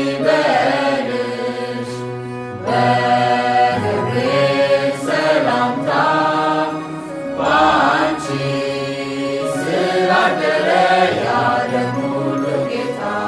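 Ethiopian Orthodox mezmur, a devotional hymn to the Virgin Mary, sung in Amharic in phrases a couple of seconds long over sustained steady backing tones.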